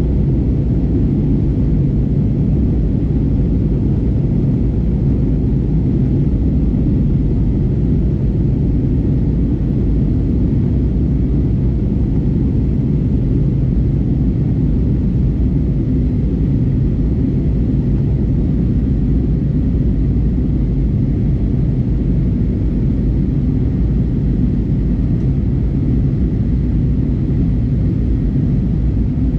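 Steady cabin rumble of an Airbus A320neo airliner in flight, heard from a window seat behind the wing: engine drone and airflow, mostly a deep constant rumble with a fainter hiss above it.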